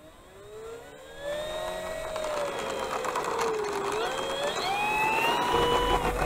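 Radio-controlled model P-47 Thunderbolt's motor and propeller spooling up for take-off: a whine that rises in pitch, dips briefly about four seconds in, then climbs higher. Near the end it gives way to a steadier tone with a low hum.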